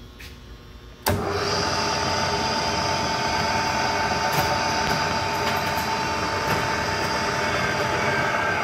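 Powermatic 1200 vertical drill press's three-phase motor switched on at the push-button: a sharp click about a second in, then the motor and spindle drive start and run steadily with a high whine.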